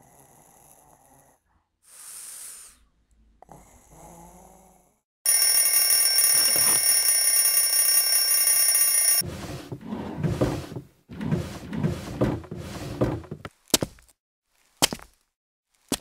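Twin-bell alarm clock ringing loudly for about four seconds, then stopping abruptly. A run of rustling follows, then several separate short knocks about a second apart.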